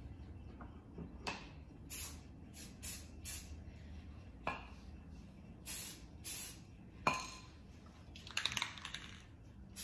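Aerosol camouflage spray paint cans hissing in a string of short bursts, about nine quick sprays. Near the end come a few metal clinks of cans.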